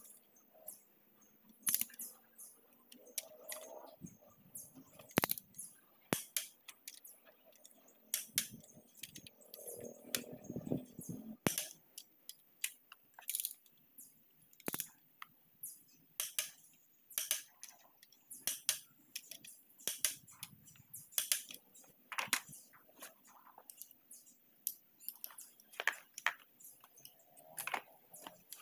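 Irregular sharp metallic clicks and clinks from a long torque wrench and 19 mm socket tightening the crankshaft bearing-cap bolts of a Perkins 152 diesel engine block to 100 pounds.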